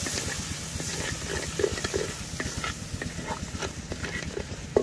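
Onion, garlic, ginger and freshly added ground spices sizzling in hot mustard oil in a clay cooking pot, a steady hiss over a low rumble. A few short low sounds come about a second and a half and two seconds in, with scattered small clicks.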